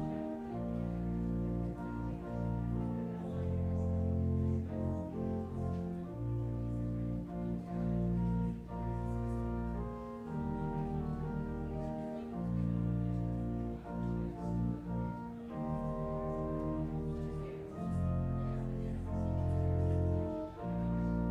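Slow instrumental music with long held notes over a deep bass, changing chord every second or two.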